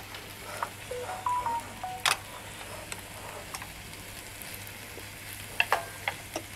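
Meat sizzling on a tabletop barbecue grill pan over a portable gas stove, with sharp clinks of chopsticks and spoons against bowls and the pan, the loudest about two seconds in and a couple more near the end.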